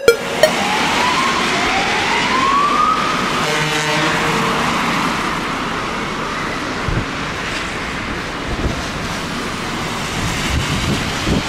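Fire engine siren sweeping up in pitch twice, followed about three and a half seconds in by a short, low blast of the engine's air horn. Steady road and wind noise runs underneath.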